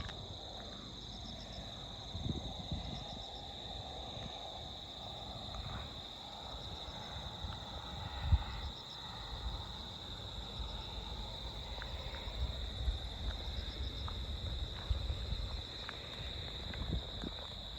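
Insects singing: a steady high drone with short pulsed chirps recurring every second or two, over a low rumble with a few knocks, the loudest about eight seconds in.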